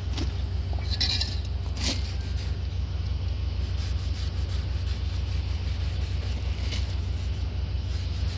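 Cloth wiping the red dye penetrant off a weld, with a few scrapes and light clinks about one and two seconds in, over a steady low hum.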